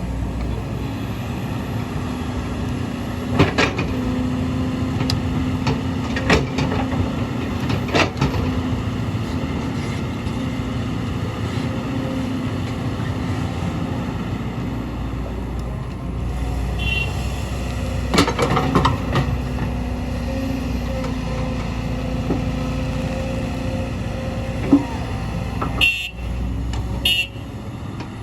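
Kobelco excavator's diesel engine running steadily under work, with several sharp metallic clanks scattered through and a couple of short high-pitched squeals near the end.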